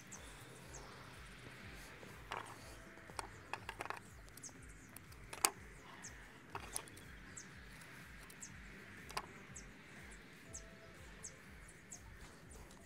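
Light handling sounds of carving small vegetable pieces with a knife: scattered faint clicks and taps, the sharpest about five and a half seconds in. Occasional short high bird chirps sound in the background.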